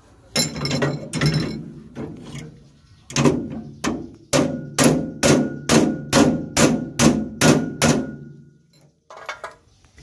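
Hammer blows on steel against a rice harvester's cutter bar as its serrated blade sections are changed: a few separate strikes, then a steady run of about a dozen blows, roughly two and a half a second, with a metallic ring, stopping near the end.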